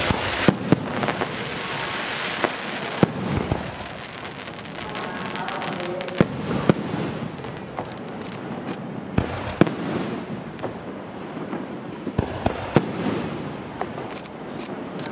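Aerial firework shells bursting overhead: repeated sharp bangs at uneven intervals, a dozen or more, over a continuous noisy rush.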